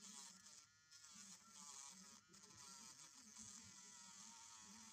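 Small handheld electric manicure drill running faintly with a white abrasive bit grinding a piece of PVC; the motor's whine wavers in pitch as the bit bears on the plastic.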